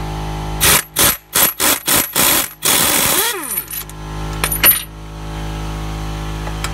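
Air impact wrench hammering on the 22 mm harmonic balancer (crankshaft pulley) bolt in about six short trigger bursts, then a longer run that breaks the bolt loose and ends in a falling whine. A couple of brief bursts follow a little later, over a steady hum.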